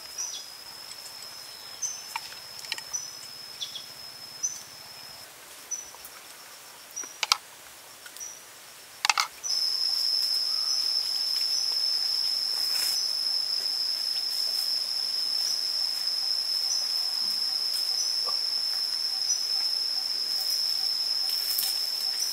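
Forest ambience of insects: a steady high-pitched drone that comes and goes for the first half and then turns continuous and much louder about halfway through. A few short, sharp clicks or chirps sound in the first half.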